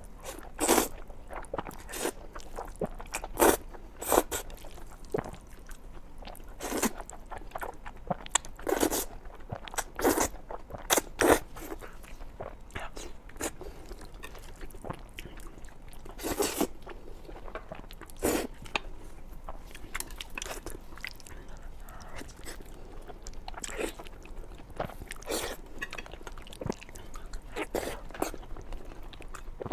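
Close-miked eating sounds of a person eating spicy Buldak-style noodles with eel: irregular bites and chewing, with short sharp mouth sounds coming every second or so, most of them in the first half.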